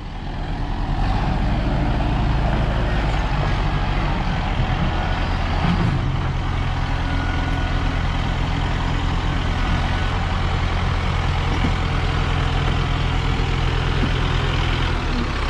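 Truck engine running steadily under way, building up about a second in and then holding an even, unchanging drone.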